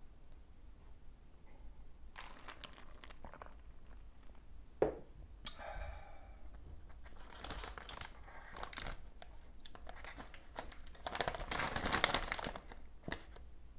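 Plastic snack-chip bag crinkling as it is handled, in several bouts, the longest and loudest near the end. A single sharp knock about five seconds in.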